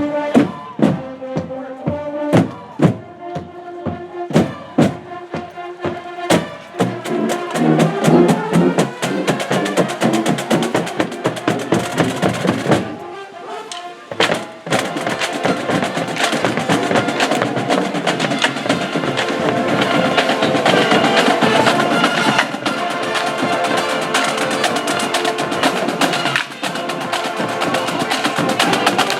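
High school marching band playing, brass over a drumline. It opens with a run of separate accented hits, builds into dense continuous playing, drops out briefly near the middle, then comes back in full and sustained.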